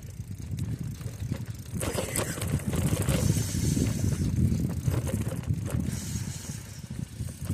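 Mountain bike rolling over a rough dirt trail: rumble of the tyres with rattling of the chain and frame over bumps, louder from about two seconds in.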